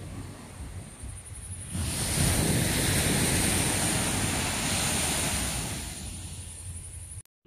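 Small sea waves breaking and washing up on a sandy beach, with wind on the microphone. The wash swells up about two seconds in, fades near the end, and cuts off suddenly just before the end.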